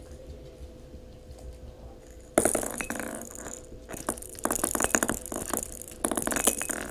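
A puppy playing with a ball makes a loud rattling clatter that starts suddenly about two and a half seconds in and goes on in uneven bursts of quick clicks.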